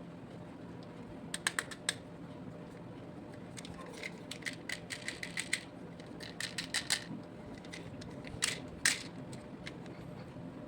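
Small diecast toy vehicles being handled, giving clusters of light clicks and taps, with two louder knocks near the end.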